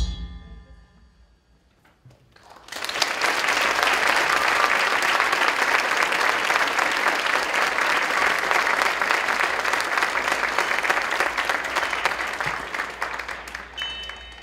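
The last notes of percussive dance music ring out and fade, then after a brief hush an audience breaks into applause that holds steady and tapers off near the end.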